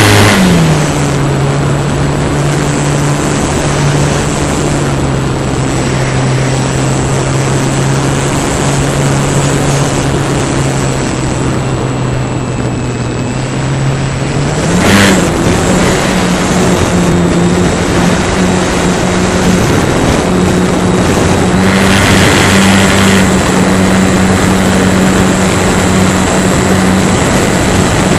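Model airplane motor and propeller droning steadily, heard from a camera riding on the plane, with wind rush over it. The pitch dips slightly just after the start, then about halfway through, after a brief whoosh, it climbs to a higher steady pitch as the throttle is opened.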